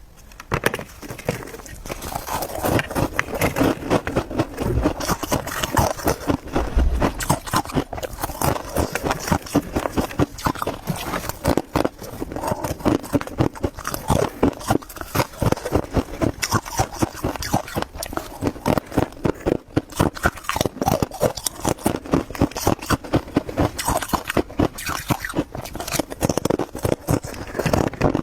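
Freezer frost being chewed and crunched close to the microphone: a dense, continuous run of crisp crunches, several a second.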